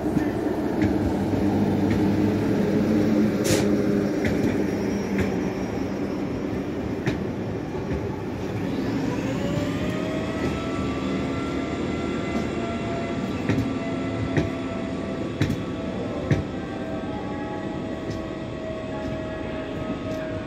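A BB 22200 electric locomotive and its rake of stainless-steel regional coaches rolling slowly past: a steady rumble of wheels on rail, with clicks as the wheels cross rail joints. About nine seconds in, a whine rises in pitch and then holds steady.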